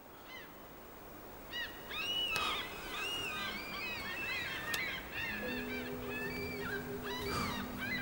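A flock of birds calling, many overlapping calls over a steady rushing background, fading in at the start. About five and a half seconds in, low sustained music tones come in underneath.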